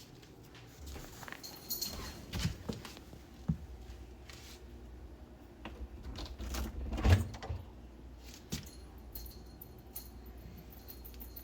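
Objects being handled: a series of scattered clicks and knocks, the loudest about seven seconds in, with faint light jingling near the end.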